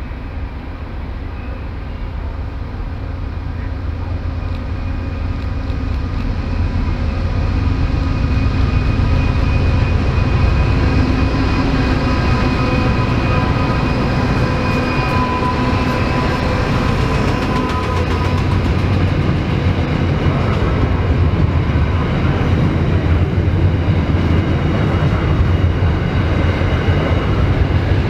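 Diesel-hauled freight train approaching and passing. The rumble of locomotive engines and wagons builds over the first several seconds, then holds steady, with a thin high whine over it for a while in the middle.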